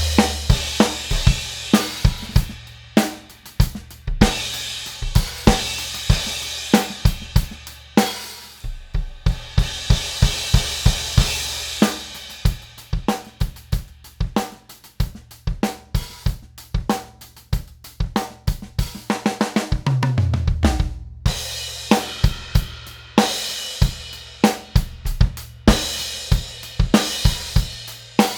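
Drum kit with Meinl Byzance cymbals being played in a steady groove: snare, bass drum, hi-hats and ringing crash and ride cymbals. There are fills with low drums and short breaks about 9 and 21 seconds in.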